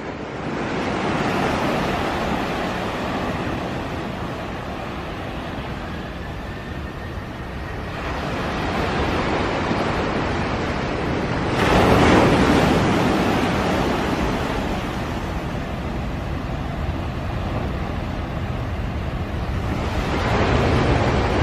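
A steady roaring rumble with no clear pitch, growing louder about twelve seconds in and again near the end: the strange sound heard coming from the sky.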